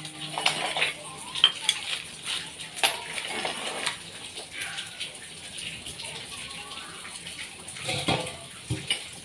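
Scattered clinks, taps and scrapes of a stainless steel cotton candy machine bowl and its sheet-metal housing being handled.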